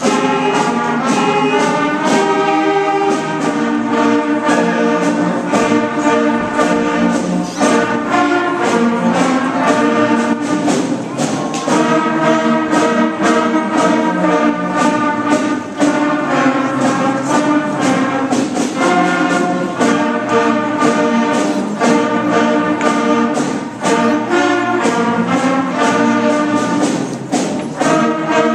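School concert band playing a Christmas piece, brass to the fore, with chords changing every second or two.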